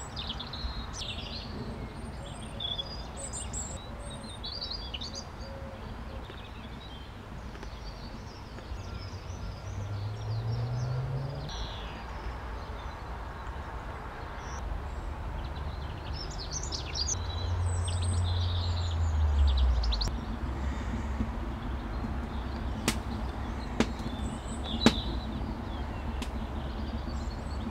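Small birds chirping on and off over a low outdoor rumble, with a low hum that twice rises in pitch. A few sharp knocks come near the end as the buckets and soil are handled.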